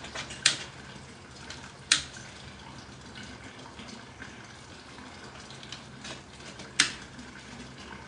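Crackling of a fire just lit in a charcoal chimney starter: a steady faint hiss with scattered small ticks and three sharp loud pops, about half a second, two seconds and nearly seven seconds in.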